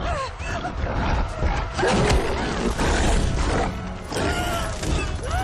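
Film soundtrack of a frantic chase: dramatic score under repeated screams and cries, with crashes and hits from a struggle.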